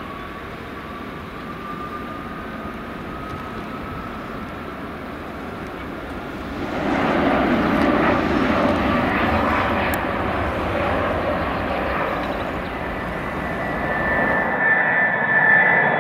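Boeing 787-8 Dreamliner's jet engines at take-off power: a steady roar with a faint rising whine, growing louder about seven seconds in. Near the end the roar cuts off, and steady high tones take its place.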